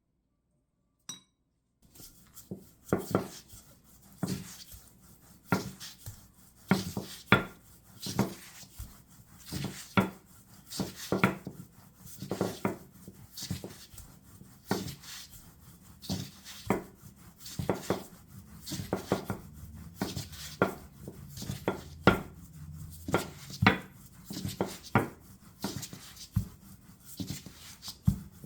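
Kitchen work sounds: a utensil knocking and rubbing on a hard work surface, a sharp knock about every second or so after a quiet start.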